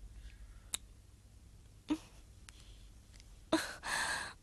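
A person's faint breathy vocal sounds: a soft click a little under a second in, then a louder breathy gasp-and-exhale near the end.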